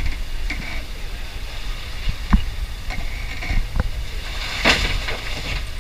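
Toyota 80 Series LandCruiser engine running low and steady as the truck crawls over a rock step, with a few sharp knocks and clunks and a brief hiss about four and a half seconds in.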